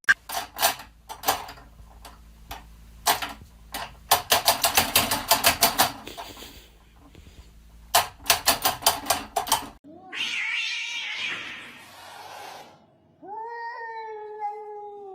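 A cat gives one long meow near the end, rising in pitch and then held. It follows several seconds of rapid, sharp clicks or taps in quick runs.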